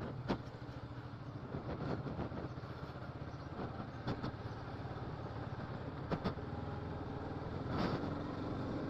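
Motorcycle engine running steadily while being ridden, with road and wind noise and a few sharp clicks.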